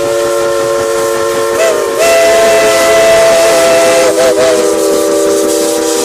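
Steam locomotive whistle blowing one long blast: several steady tones sounding together over a loud hiss of steam. The pitch wobbles briefly about two seconds in and again near four seconds.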